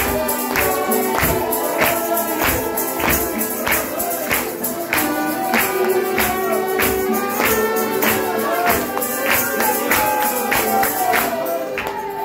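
Church worship music: a Christian hymn sung by voices over a steady percussive beat of about two strokes a second, the music stopping shortly before the end.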